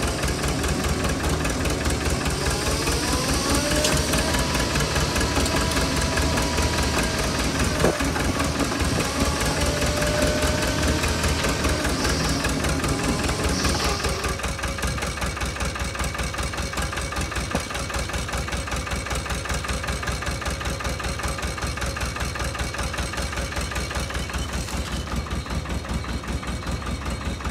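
Engine running steadily to drive an Epoke grit spreader, with a whine from the spreader's drive that rises in pitch a couple of seconds in, holds, and stops about halfway through, leaving the engine running alone.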